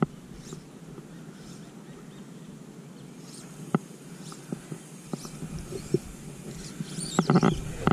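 Fly line being stripped in through the rod guides in short pulls, making faint swishes, with a couple of light clicks. The swishes get louder and busier near the end as the retrieve quickens.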